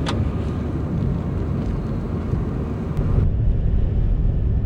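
Steady low rumbling outdoor field noise, with no clear pitch. Its character changes at an edit about three seconds in.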